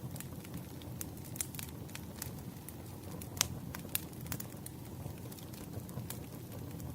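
Wood fire crackling: irregular sharp pops and snaps, a few louder ones, over a steady low rumble.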